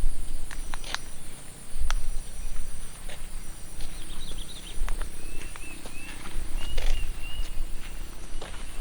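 Footsteps on a mountain trail, with irregular sharp steps and knocks, over a steady high-pitched insect drone. A few short chirps come about halfway through.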